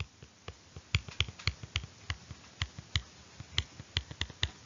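Stylus tapping and clicking on a tablet's glass screen as numbers are handwritten: a string of sharp, irregular clicks, several a second.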